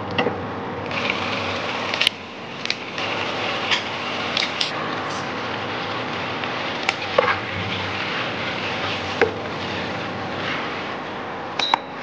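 Wooden spatula stirring and tossing pasta and sauce in a pan, scraping and knocking against the pan several times over a steady hiss from the cooking.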